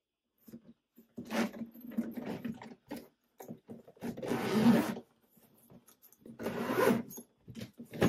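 Zipper on the interior divider of a Louis Vuitton Horizon 55 suitcase being drawn open in three runs of about a second each, running smoothly, with light rubbing and knocks of handling between the runs.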